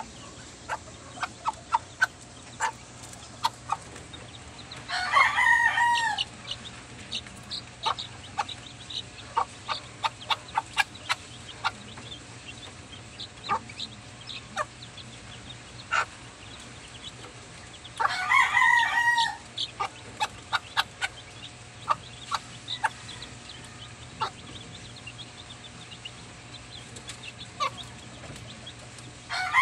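A rooster crowing twice, about thirteen seconds apart, each crow about a second and a half long and dropping at the end. Many short chicken calls are heard in between.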